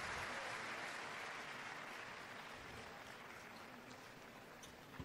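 Arena crowd applauding after a point in a table tennis match, the clapping dying away.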